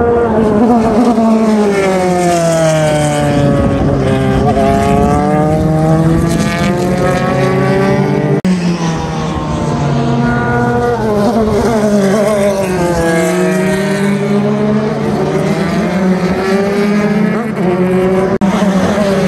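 Engines of several JAF F4 formula race cars running around the circuit, their notes falling and rising in pitch over and over as they go through the gears.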